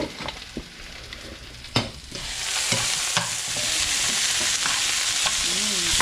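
Food sizzling in a hot frying pan. A few sharp clicks sound first, then the sizzle comes in about two seconds in and grows louder.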